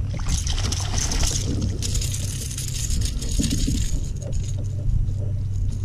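Steady wind rumble on the microphone. About a quarter second in, a second and a half of crackling splash noise begins, fading into a thinner hiss, as a hooked fish thrashes at the surface beside the kayak.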